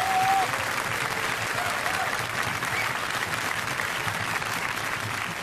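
Studio audience applauding steadily, with a brief call from the crowd at the very start. The applause slowly eases off toward the end.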